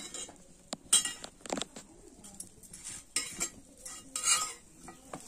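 Metal spatula scraping and knocking against an iron kavil griddle pan as rice-flour ghavne are lifted and turned over a wood fire. A few separate scrapes and clinks, the sharpest about a second in.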